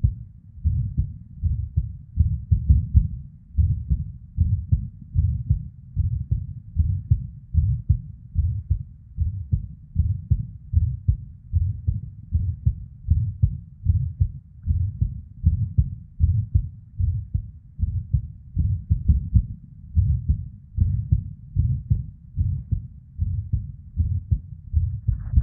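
A woman's heart beating in an irregular rhythm: repeated low lub-dub thumps, with the whooshing murmur of blood flow and occasional ectopic (premature) beats. A short scrape sounds right at the end.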